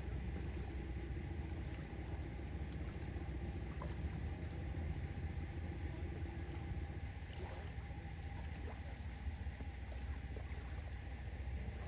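Boat's outboard motor idling steadily with a low, even rumble.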